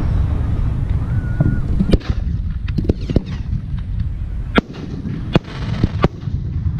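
Fireworks show: aerial shells bursting as a series of sharp cracks, about six between two and six seconds in, over a steady low rumble of booms.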